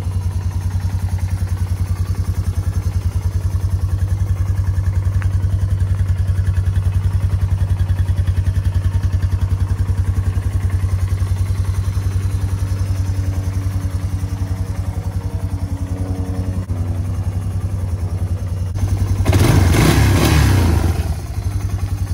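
Yamaha Bear Tracker 250 ATV's single-cylinder four-stroke engine idling steadily, with the carburettor issues fixed and the engine running well. Near the end it is revved briefly for about two seconds, then drops back to idle.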